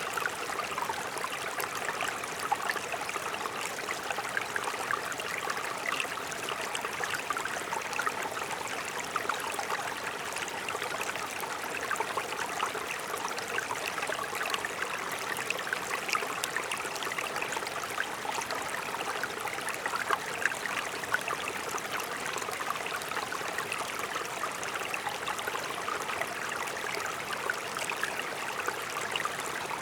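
A mountain brook babbling and splashing over rocks: a steady rush of water with fine bubbling detail.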